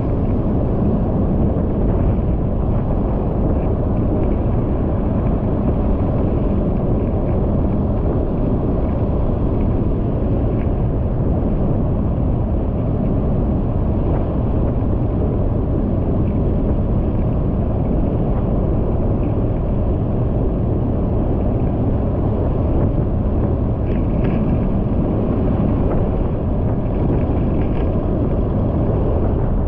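Steady rumble of a vehicle driving on a paved road at about 45 km/h: mixed road, wind and engine noise at an even level, with no change in pace.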